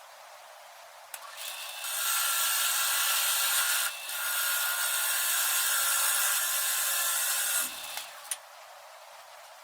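A woodworking power tool runs steadily for about six seconds with a brief dip partway through, then stops.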